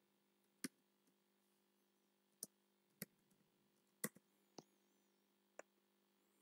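Near silence broken by about seven faint, irregularly spaced computer keyboard key clicks as a line of code is typed.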